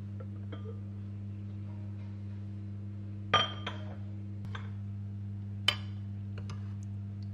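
Glass slow-cooker lid clinking sharply against the ceramic pot as it is lifted off, about three seconds in, followed by a metal spoon clinking against the ceramic pot a couple of seconds later. A steady low hum sits underneath.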